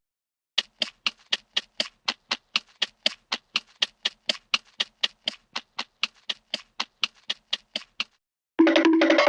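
An even run of short, sharp taps, about four a second, lasting about seven seconds. Near the end it gives way to a steady pitched musical tone.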